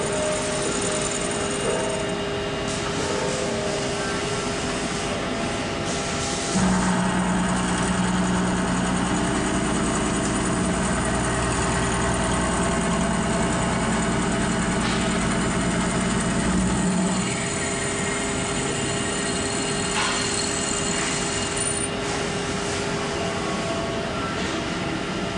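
Hartford CNC machining center face-milling a steel plate: a steady spindle hum under cutting noise. The cut grows louder and heavier from about a quarter of the way in, then eases off about two thirds through.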